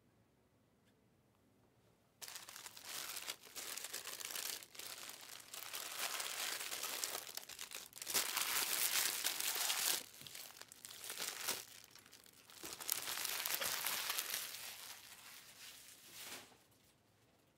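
Packaging being crinkled and crumpled in several bouts. It starts about two seconds in, is loudest in the middle, and stops shortly before the end.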